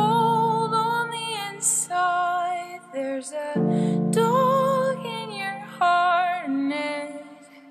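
Slowed-down, pitched-down daycore song: a female voice singing over sustained keyboard chords, with a new chord coming in about three and a half seconds in and the music fading near the end.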